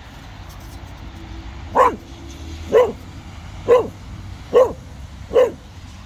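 Cocker spaniel barking five times, about one bark a second, starting about two seconds in.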